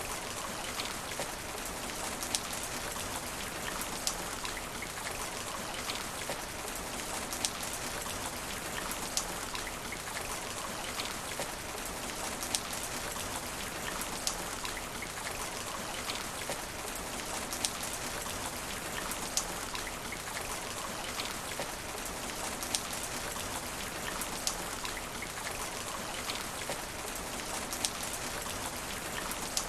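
Steady rain falling on asphalt: an even hiss with sharp, close drop impacts standing out every second or two.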